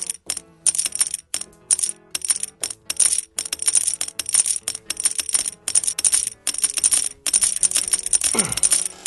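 Coins dropped one after another into a coin slot: a quick, irregular run of metallic clinks and jingles, about three a second, over background music.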